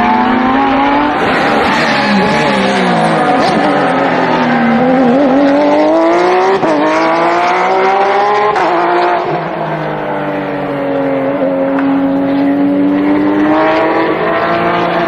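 GT race car engines running hard, several overlapping, their note climbing under acceleration and dropping sharply at each upshift.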